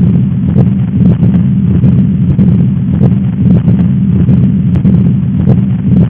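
Recorded heart sounds of patent ductus arteriosus: a continuous rumbling 'machinery' murmur with no quiet gaps between beats, pulsing slightly with each heartbeat.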